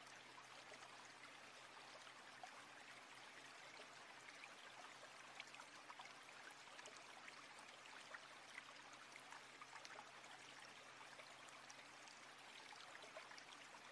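Faint, steady trickle of a thin stream of water pouring from a small pipe into a shallow pool, with scattered light splashes.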